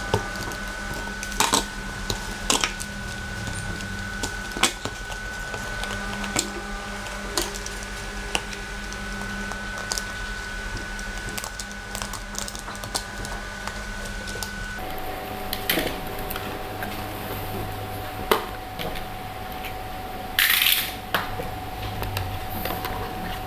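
A cardboard box being cut open with a snap-off utility knife and handled on a stone tabletop: scattered small clicks, taps and knocks of the blade and box, with a short scraping swish near the end, over a steady faint hum.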